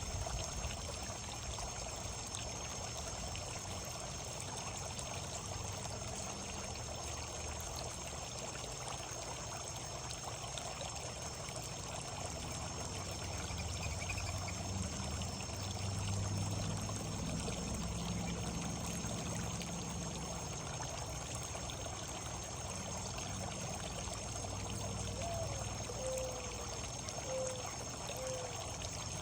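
Steady running, trickling water, with a few short faint bird calls near the end.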